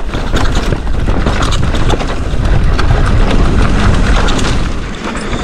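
Mountain bike riding fast down a rocky trail: wind buffets the action camera's microphone in a steady rumble, and tyres and frame rattle and knock over the rocks.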